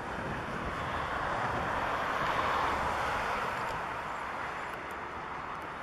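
Airbus A340-300's four CFM56 jet engines running at takeoff power during the takeoff roll: a steady rushing noise that swells about two seconds in and then eases off, with wind buffeting the microphone underneath.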